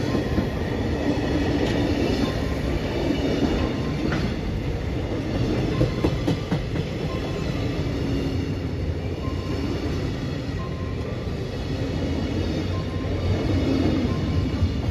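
Long freight train of container-laden flat wagons passing through the station without stopping: a steady rumble of wheels on rail, with a few sharp clicks as wheels cross rail joints.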